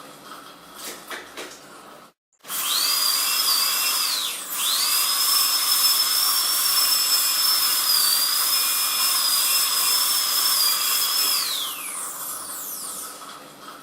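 Dentist's drill whining at a high pitch. It starts about two seconds in, dips and spins back up around four and a half seconds, and runs steady until it winds down in pitch near the end.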